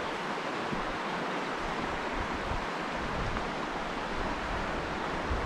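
Running stream water: a steady, even rush.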